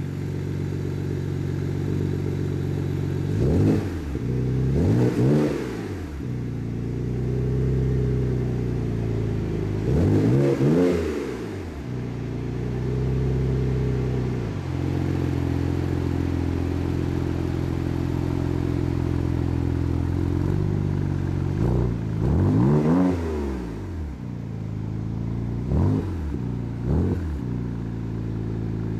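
BMW 335i turbocharged 3.0-litre inline-six running through a TopSpeed Pro-1 aftermarket catback exhaust with 4-inch tips. It idles steadily and is blipped several times, each rev rising and falling quickly, with a stretch held at slightly raised revs.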